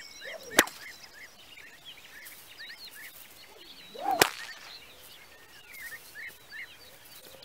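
Whip cracked twice with a cattleman's crack, the basic forward-and-back throw, about three and a half seconds apart. Each sharp crack comes just after a short swish of the whip through the air.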